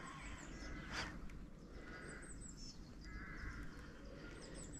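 Birds calling outdoors: two short harsh calls about two and three seconds in, and quick runs of small high chirping notes, over a faint low steady rumble. A brief sharp sound comes about a second in.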